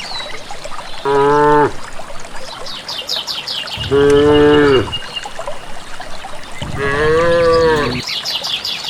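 Cattle mooing three times: a short call about a second in, then two longer calls, with birds chirping in the background.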